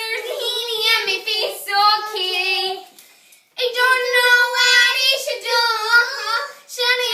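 Young girls singing in put-on silly voices: high, wavering sung notes, with a short break about three seconds in before the singing starts again.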